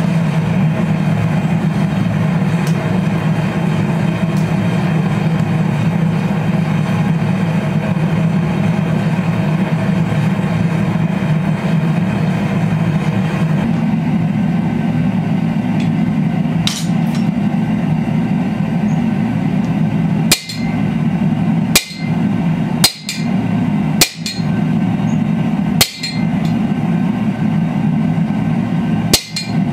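Gas forge burner running with a steady rush. In the second half, six hammer blows on a guillotine fullering tool pinching a red-hot steel bar, a second or two apart and each with a short metallic ring.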